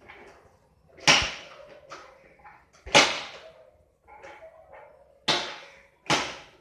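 A dog barking: four loud, sharp barks at uneven intervals, about one, three, five and six seconds in.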